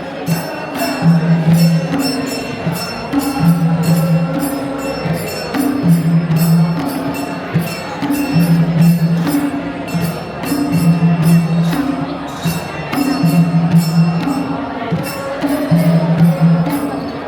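Traditional Gurung dance music. A deep two-note beat, low then higher, repeats about every two seconds under a steady fast jingling and voices singing.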